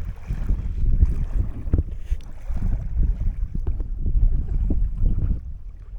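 Canoe being worked on a creek: paddle and water sounds with scattered short knocks, under a low rumble of wind on the microphone.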